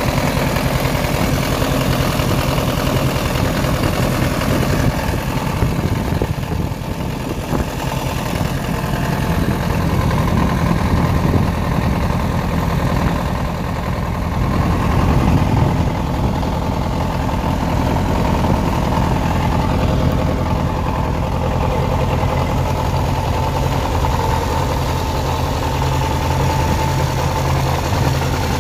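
Massey Ferguson 35 tractor's diesel engine running steadily at a low, even speed.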